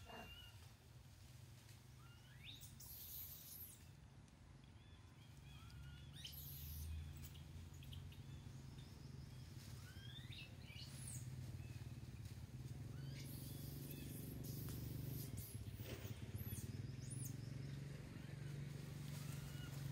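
Quiet outdoor ambience: scattered short bird chirps, some sweeping up or down in pitch, over a low steady hum.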